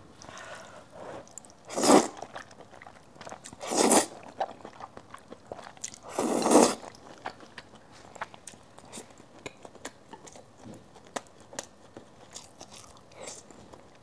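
Close-miked eating: three loud slurps of braised glass noodles in the first seven seconds, then chewing of rice with small wet clicks.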